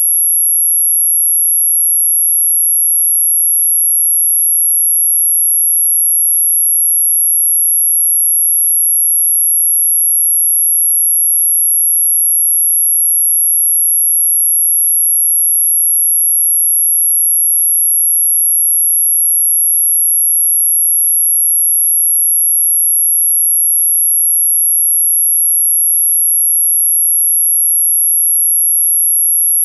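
Synthetic anti-mosquito repellent tone: a single pure, very high-pitched whine held perfectly steady and unbroken.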